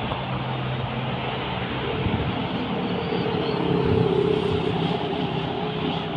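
A large vehicle running close by: a steady rumble with a hum that rises and grows louder through the middle, then eases off.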